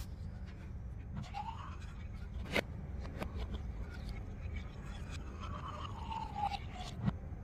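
A few light clicks and crinkles of a plastic water bottle being handled and set down, over a steady low hum.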